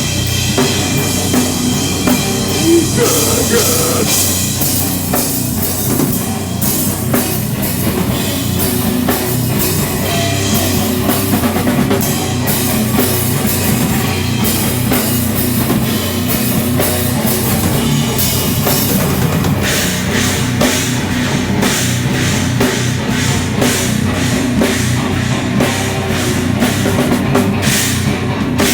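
Heavy rock band playing live, amplified: distorted guitars, bass and a pounding drum kit, with the cymbal crashes growing denser from about twenty seconds in.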